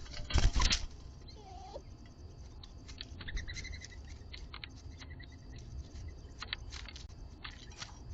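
Doves at a seed feeder: a run of small clicks and taps from pecking and shuffling, with a louder thump about half a second in and a brief soft low call from a dove about a second and a half in.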